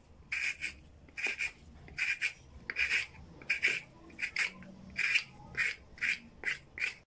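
A plastic-bladed potato cutter scraping over a raw potato, taking off the skin in quick, rhythmic strokes, about two to three a second.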